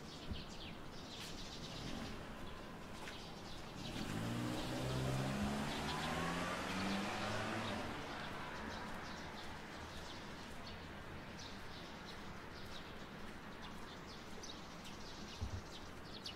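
Small birds chirping on and off throughout. About four seconds in, a motor vehicle's engine grows louder and rises in pitch as it accelerates past, then fades after about eight seconds.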